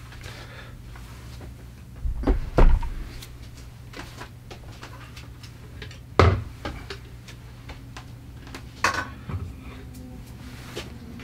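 Scattered knocks and clunks of cabinet doors and household items being handled and put away in a small kitchen: a pair about two seconds in, the loudest single one about six seconds in, two more near nine seconds, over a steady low hum.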